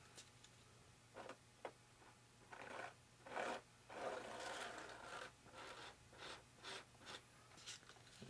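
Faint, irregular scrapes and rubs of a wooden stick scooping mixed 20-minute epoxy from a paper cup and spreading it onto a foam wing.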